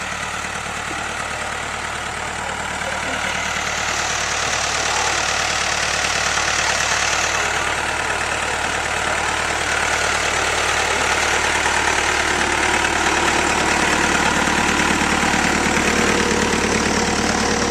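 An engine running steadily, growing louder about three seconds in as it comes closer or works harder.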